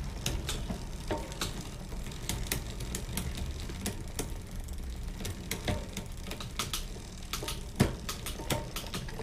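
Bicycle drivetrain turned by hand in a work stand: the chain runs over the rear sprockets with irregular clicks and ticks while the rear derailleur shifting is tested after a cable-tension adjustment. There is a louder knock near the end.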